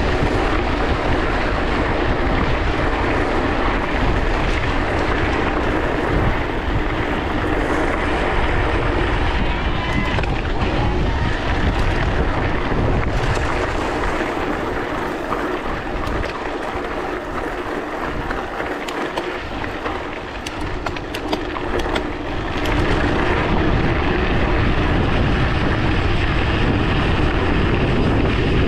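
Wind buffeting a bike-mounted action camera's microphone while riding, over the noise of bicycle tyres rolling on a gravel forest road. The low rumble of the wind eases for several seconds past the middle, where a few rattling clicks come through, then returns.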